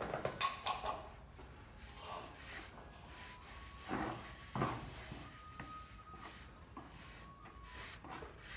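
Hand work on a surface: irregular scraping and rubbing with a few knocks, the loudest knocks near the start and about four seconds in, plus a few brief faint squeaks.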